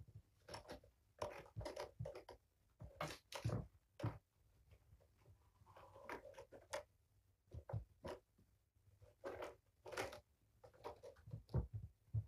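Kittens scrambling and playing: irregular short scratching and rustling bursts, like claws catching on carpeted cat furniture and toys, with brief pauses between them.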